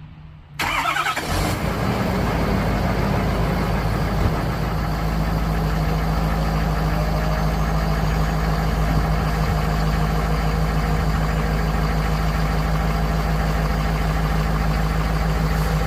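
Ford 6.7 Powerstroke V8 turbodiesel cold-starting about half a second in, then idling steadily, with the turbo whine that shows on a cold start.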